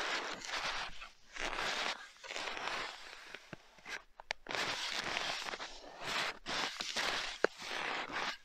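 Skis sliding and crunching through cold, dry snow in a steady stride, about one stroke a second. A couple of sharp clicks cut in, the sharpest near the end.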